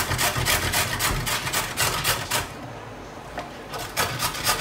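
A vegetable being grated on a metal box grater: rhythmic scraping strokes, about four a second, that pause for about a second past the middle and then start again.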